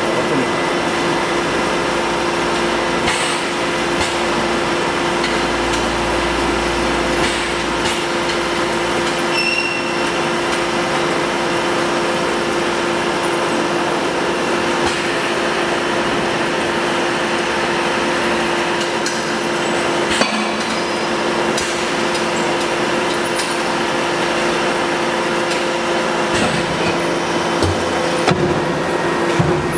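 Hole punching and logo making machine on an LPG gas cylinder production line running with a steady mechanical hum. Scattered sharp metallic knocks and clanks come through it, a few of them close together near the end.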